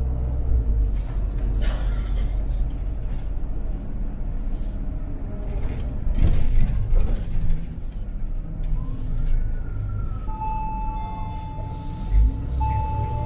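City bus at a stop, heard from inside: a low steady engine rumble with short hisses of compressed air. From about ten seconds in, a steady electronic beep sounds, breaks off briefly and resumes.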